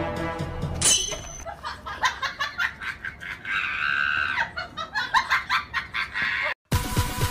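Someone laughing in quick, rapid bursts, with a higher, drawn-out squeal of laughter about four seconds in. Background music stops about a second in, just before a short sharp high-pitched sound.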